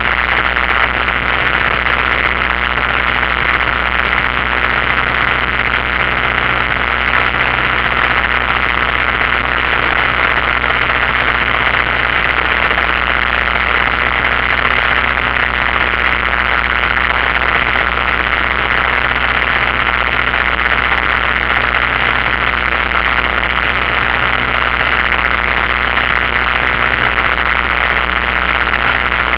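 Steady drone of a single-engine light aircraft's engine and propeller heard from inside the cockpit, with a constant hiss over it and no change in power.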